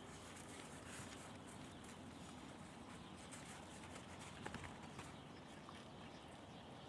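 Near silence with faint crunching of footsteps in packed snow, and a few sharper ticks about four and a half seconds in.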